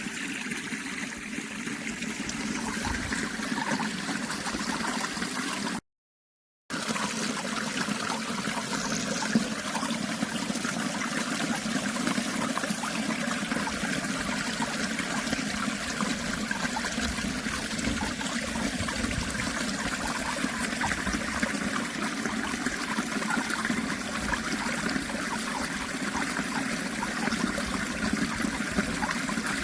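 Running water trickling steadily. The sound cuts out completely for under a second about six seconds in.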